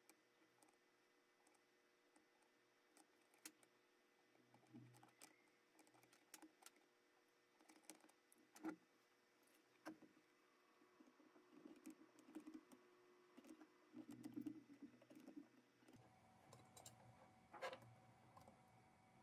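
Near silence: faint, scattered small clicks and taps of hands working with a soldering iron, solder wire and a copper tube in a helping-hands clamp, over a faint steady room hum.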